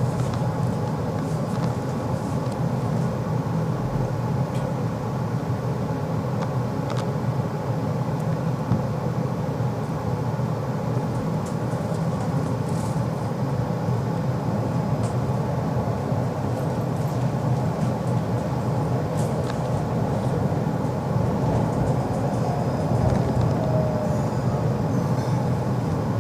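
Tram running, heard from inside the car: a steady rumble of the wheels on the rails and the drive, with a few faint clicks.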